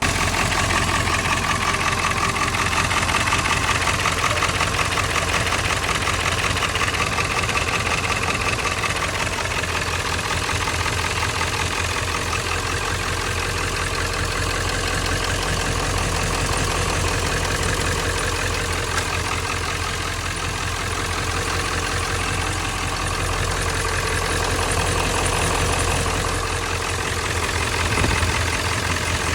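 A vehicle engine running steadily and fairly loudly, starting abruptly.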